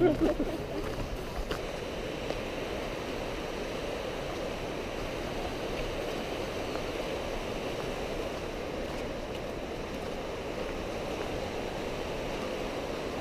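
Mountain river rushing over rocks in a steady, even stream of water noise.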